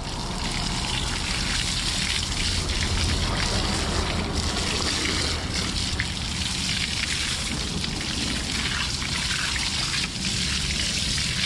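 Garden hose spraying fresh water over a Yamaha outboard motor, a steady splash and trickle on its cowling, lower unit, propeller and bracket, rinsing off salt water after use.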